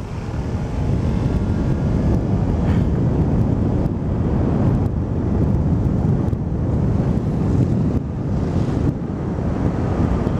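Wind buffeting the microphone of a camera on a moving motor scooter, a dense, steady low rumble over the scooter's running noise.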